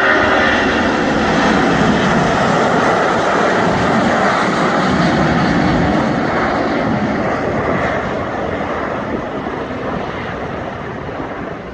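Airbus A340's four jet engines at takeoff thrust as it lifts off and climbs away: a loud, steady roar that slowly fades over the last few seconds.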